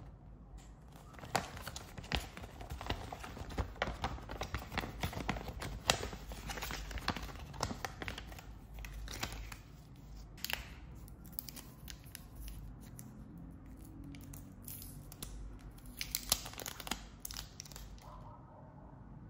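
Paper instruction leaflet being folded and handled: a dense run of paper crinkling and rustling for about the first half, then quieter, scattered handling sounds with a short burst of crinkling near the end.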